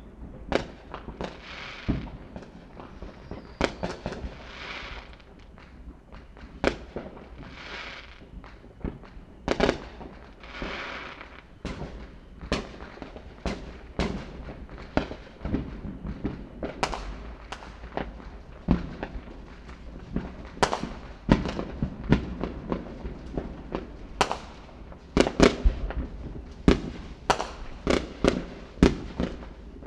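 Fireworks going off: a steady run of sharp bangs from bursting shells, several followed by about a second of crackling hiss. The bangs come thickest and loudest in the last few seconds.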